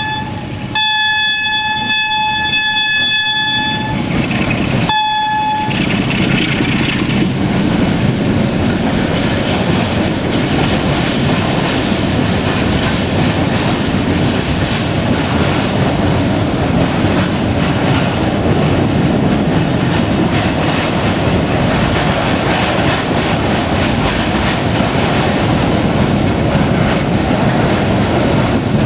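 Train horn sounding a long blast of about three seconds, then a short one. A train then passes close by, and the steady noise of its wheels on the track fills the rest.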